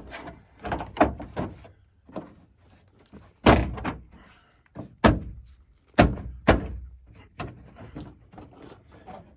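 Plastic wheel well liner being shoved and flexed up into a pickup's rear wheel well: a string of sharp knocks and thumps as it hits the wheel arch, the loudest about three and a half seconds in, with scraping and rustling between.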